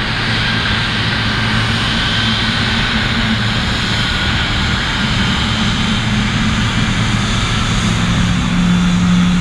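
Boeing 777F jet engine running at taxi idle as the freighter rolls slowly past, a steady low drone with a thin whine above it that grows a little louder near the end. It is taxiing on one engine: the other has been shut down and only the right-hand one, as the spotters see it, is still running.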